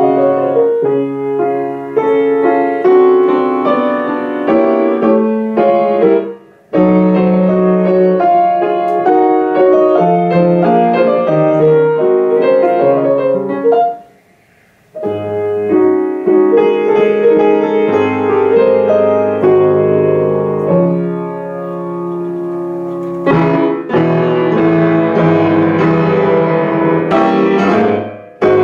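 Grand piano playing a classical piece, breaking off twice: briefly about six and a half seconds in, and for about a second around fourteen seconds in, before playing on.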